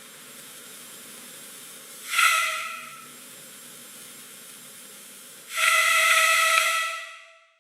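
Frame heater blowing air: a steady low hiss, then two louder whistling gusts. The first is short, about two seconds in; the second starts about five and a half seconds in, holds, and fades out near the end.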